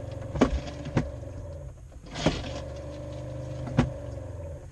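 Steady hum of a small electric motor, with three sharp knocks and a short rush of noise about two seconds in; the hum dies away near the end.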